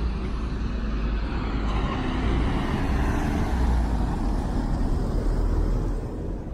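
Box delivery truck driving past close by on wet cobblestones: engine rumble and tyre noise build up, stay loud as it goes by, and fall away near the end.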